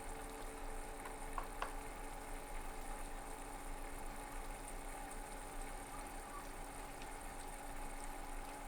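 Quiet steady hiss with a faint hum: room tone. There are a couple of faint clicks about a second and a half in.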